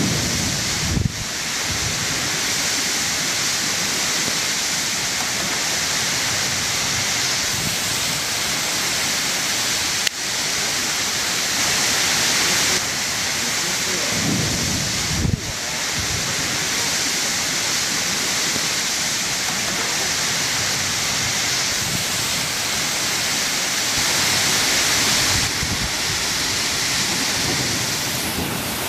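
Torrential rain driven by downburst winds: a dense, steady roar of rain, with gusts now and then buffeting the microphone in low rumbles, the strongest about a second in and halfway through.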